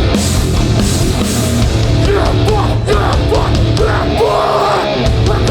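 Hardcore punk band playing live at full volume: distorted guitars, bass and drums, with sliding, bending notes above. The bass and drums drop out briefly about four seconds in, then come back.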